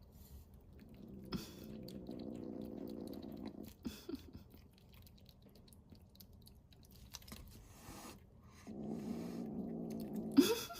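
Rescued kitten growling over its food in two low, rough rumbles of a few seconds each. The second ends in a short rising cry.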